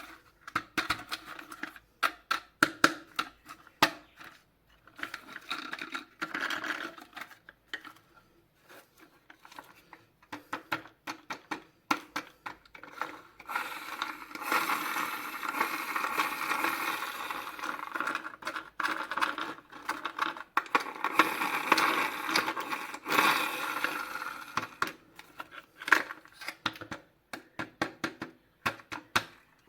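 Hard plastic toys and packaging being handled: sharp clicks and taps, with a long stretch of continuous scraping noise in the middle.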